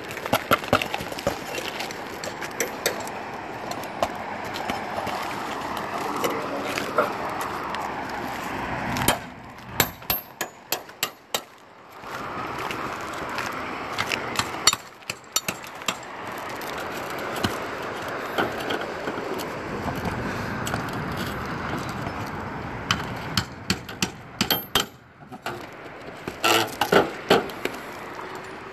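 Hammer and flat pry bar knocking and prying at asphalt shingles and roofing nails around the base of a rooftop package unit, in several bursts of sharp knocks and clicks. Between the bursts runs a steady rushing noise.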